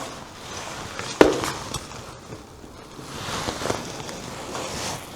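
Waterfowl bathing on a lake, splashing water over their wings, in irregular rushes of splashing, with one sharp knock about a second in.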